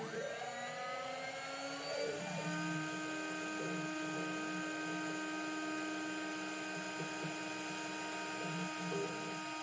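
Chinese air-cooled 2.2 kW ER-collet CNC router spindle spinning up, its whine rising in pitch for about two seconds, then running at a steady high whine. Softer, uneven lower sounds from the machine's axes moving the spindle sit underneath.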